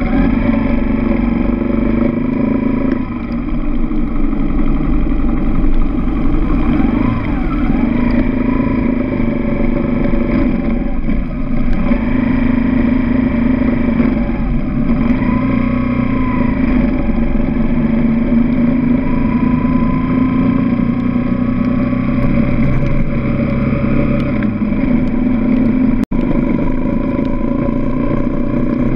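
Dirt bike engine running as the bike rides along, its pitch rising and falling with the throttle. The sound cuts out for an instant near the end.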